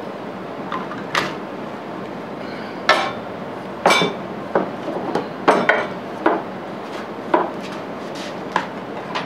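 A metal lathe motor-mount plate and an electric motor being handled on a wooden board on a workbench: about a dozen irregular clunks and knocks as the heavy parts are lifted, turned and set down.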